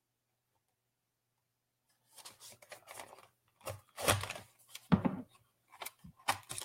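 Cardboard blind-box packaging being handled and torn open: irregular rustling and tearing with a few sharp snaps, starting about two seconds in.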